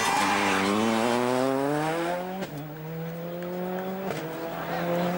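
A World Rally Car's turbocharged engine accelerating hard, its pitch climbing steadily through the gears. Two quick upshifts, each marked by a sharp crack and a drop in pitch, come about halfway through and again near the end.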